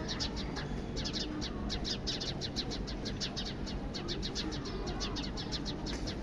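House sparrows chirping: a continuous string of short, quick chirps, several a second, without pause.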